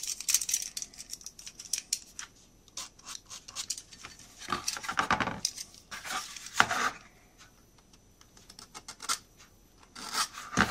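Snap-off craft knife blade scraping and flicking squeezed-out glue from the inside joints of a laser-cut wooden wagon body: a few short scrapes in the middle, among small clicks and taps of the parts being handled.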